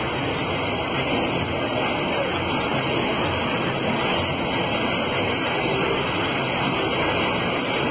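Fast-flowing floodwater rushing and churning against the front of a car, a steady, unbroken rush of water.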